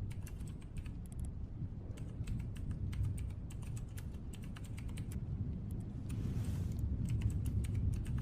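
Computer keyboard keys clicking in quick, irregular runs, as when playing a game on a PC, over a steady low rumble.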